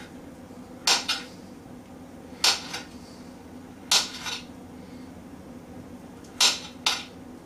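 Sharp clinks of something knocking against a ceramic dinner plate as food is handled on it, coming in four pairs a second or two apart, over a faint steady hum.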